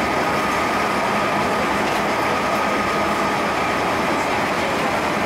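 A JR Central 211 series 5000 electric multiple unit running at speed through a tunnel, heard from behind the cab: steady wheel and running noise with a steady high whine throughout.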